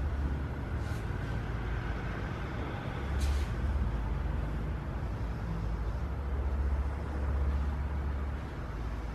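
Low steady rumble of background noise, with a few faint short clicks, one about three seconds in.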